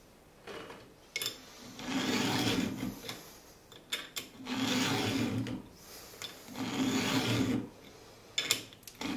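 Round chainsaw file rasping across a saw-chain cutter tooth in three slow strokes of about a second each, with short clicks between strokes as the file is set back on the tooth.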